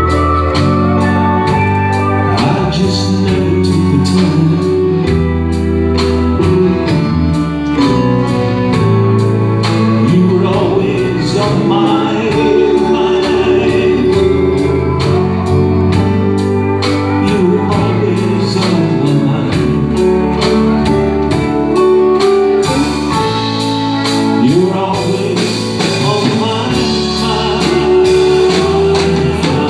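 Live country band music, acoustic guitar and fiddle playing together.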